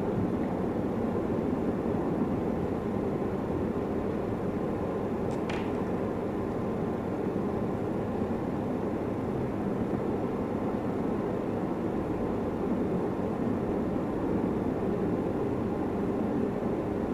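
Steady low background rumble that holds an even level throughout, with one brief faint tick about five and a half seconds in.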